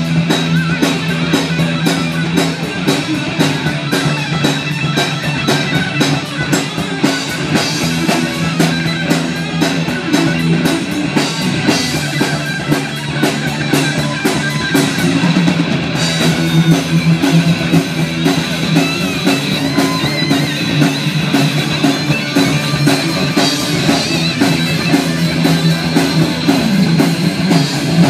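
Live band playing loud amplified rock music, with electric guitar and a drum kit coming through the stage speakers.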